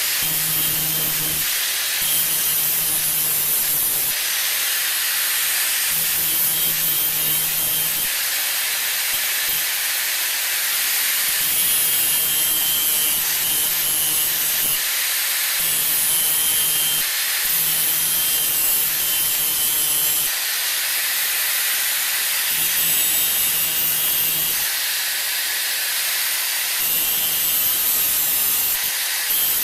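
Power grinder cleaning up a steel part: a steady loud hiss of abrasive on metal, with a low motor hum coming and going every couple of seconds as the tool is worked.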